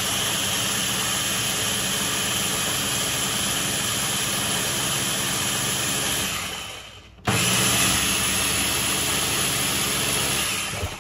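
Electric blender motor running steadily, winding down and stopping about seven seconds in, then switched straight back on and running again until it cuts off shortly before the end.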